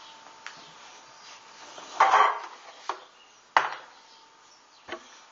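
Handling sounds from a foam model-plane fuselage with newly fitted wire landing gear being moved about on a table: a short scraping rub about two seconds in, then three sharp knocks.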